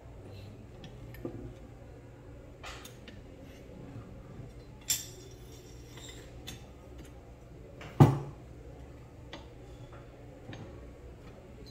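Parts of a Reximex Throne PCP air rifle being handled and fitted together during reassembly: scattered clicks and clinks, with one sharp knock about eight seconds in.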